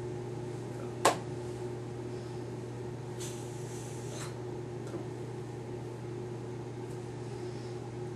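Steady low electrical hum of room and recording noise, with one sharp click about a second in and a faint rustle of clothing from the signer's moving arms a couple of seconds later.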